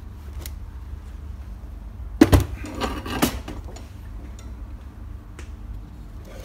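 Knocks and clatter of a metal scooter exhaust being picked up and moved, with the loudest knocks a couple of seconds in, then a few light ticks, over a steady low hum.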